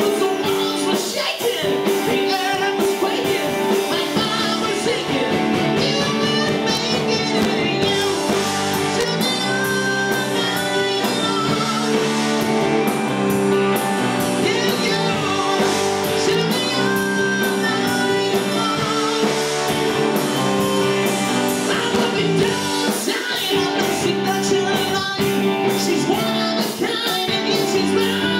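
Rock band playing live: electric guitars, bass guitar and drums, with lead vocals.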